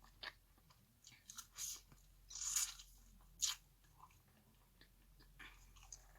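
Close-miked biting and chewing of crunchy fried chicken: irregular crunches and smacks, the loudest about two and a half seconds in.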